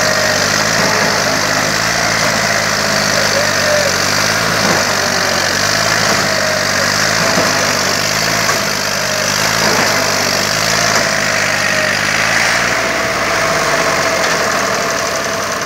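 IMT 540 tractor's three-cylinder diesel engine running steadily under load as it strains to drag its loaded trolley out of deep mud. The sound eases slightly near the end.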